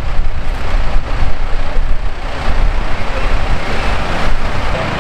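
Fire engine's diesel engine running with a low rumble, mixed with wind buffeting the microphone.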